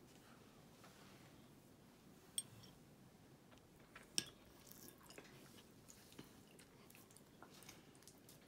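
Near silence broken by a few faint clinks of a metal fork against ceramic plates as a slice of cheesecake is cut and served, the clearest about two and four seconds in.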